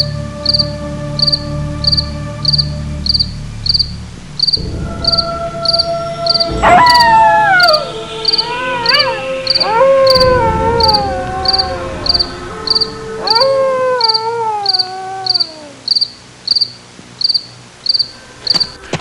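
Night-time horror sound effect: crickets chirping in an even pulse of about two chirps a second, over a low drone for the first few seconds. From about seven seconds in, three or four long howls come in, each rising sharply and then falling slowly in pitch.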